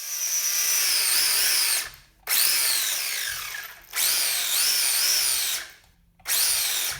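A WLtoys 20402 RC monster truck's brushed electric motor and metal drivetrain revved hard in four bursts: a high whine that rises and falls in pitch with each throttle blip.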